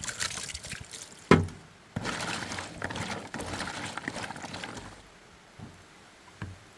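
Water being poured and swished over cut coconut pieces in a bowl during a final rinse. There is one sharp knock about a second in, and a longer stretch of splashing follows.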